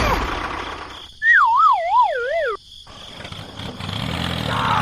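A cartoon-style sound effect: a wavering whistle that wobbles up and down about four times as it slides down in pitch, lasting about a second and a half, about a second in. Afterwards the steady hum of a small motor comes back in.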